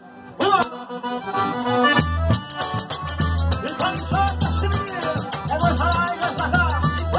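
Forró band playing an instrumental passage led by the accordion's melody over steadily ticking shaker-like percussion. It starts after a brief drop, and the bass comes back in about two seconds in.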